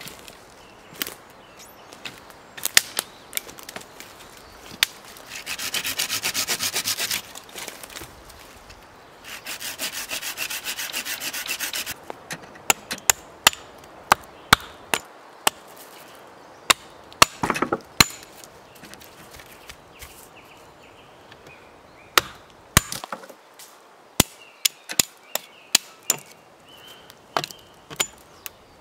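Scattered clatter of dry sticks on a pile of fallen branches. Then a small saw cuts through a stick in two quick runs of rapid strokes, and a small hatchet trims the side branches off a stick in a string of sharp single chops.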